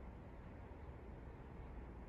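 Quiet room tone: a steady low hum with faint hiss, and no distinct sound events.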